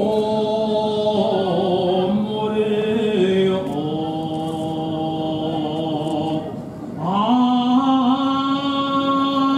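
Sumo jinku, the traditional sumo song, sung solo and unaccompanied by a man. He holds long notes that step from pitch to pitch, with a short pause for breath about seven seconds in before the next held note.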